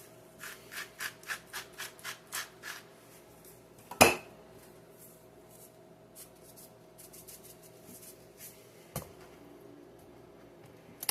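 Black pepper being ground from a pepper grinder: about nine short, quick scratchy strokes in the first three seconds. A sharp knock follows about four seconds in and lighter clicks later, over a faint steady hum.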